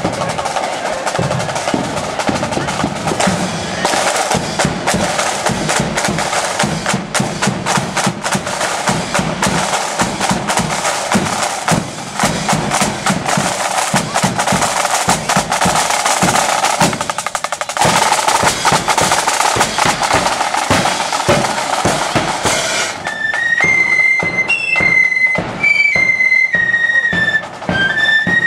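Marching flute band: the side drums beat a rapid pattern, and about 23 s in the flutes come in playing a melody over the drums.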